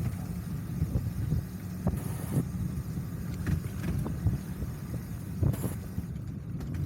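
Steady low rumble of wind buffeting the microphone and tyres rolling on the road during a bike ride, with a few light clicks and rattles.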